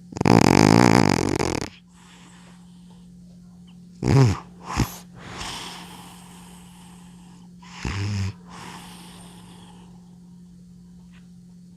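Elderly cat snoring loudly in its sleep: a long rattling snore at the start, two short snorts about four seconds in and another snore near eight seconds, each followed by a softer breathy exhale.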